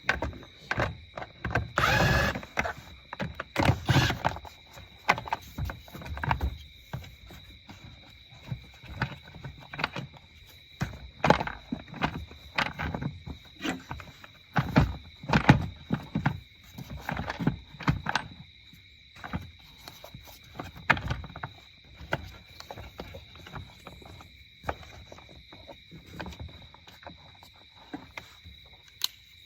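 Irregular knocks, clicks and clatter of the plastic air box and intake tube being handled and pressed into place on a Ram 1500's 5.7 Hemi engine bay. A faint steady high whine sits underneath.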